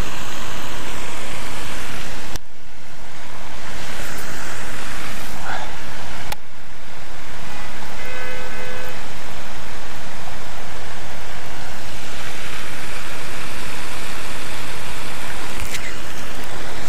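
Steady loud wind rushing and buffeting over the microphone, dipping abruptly twice in the first few seconds. A brief pitched tone sounds about eight seconds in.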